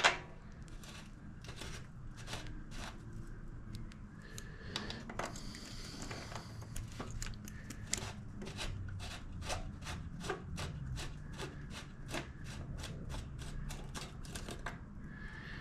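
Rapid, even ratchet-like clicking of a hand tool working a reverse-threaded bicycle bottom bracket cartridge loose, with scattered clicks at first, then a steady run of about three or four clicks a second over the second half.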